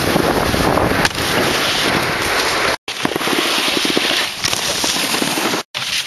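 Snowboards scraping and chattering over snow, a dense crackling rush, with wind buffeting the microphone. The sound cuts out briefly twice, about three seconds in and near the end.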